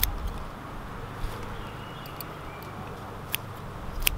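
Small pruning scissors snipping sedum stems: a few sharp metallic clicks, one at the start and two near the end, over a low rumble of wind on the microphone.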